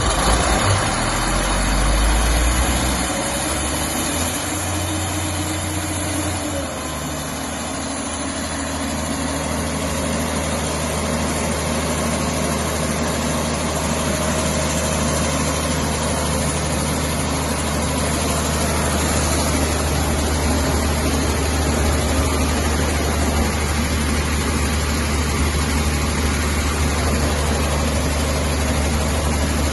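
Ingersoll Rand 17/235 portable compressor's engine just after starting, its low note shifting over the first few seconds before it settles, about seven seconds in, into a steady idle.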